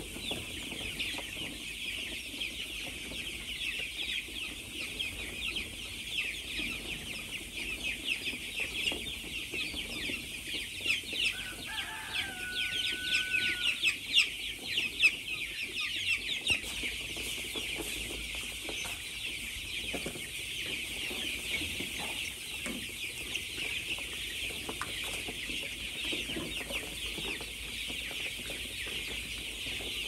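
A large flock of young chicks peeping all together in a dense, high-pitched chorus of overlapping short calls. About twelve seconds in, one lower, longer call stands out.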